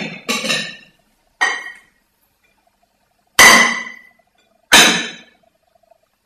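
Sharp strikes on a hard object, each ringing briefly: two close together at the start, one about a second later, then two louder ones a few seconds in, about a second and a half apart.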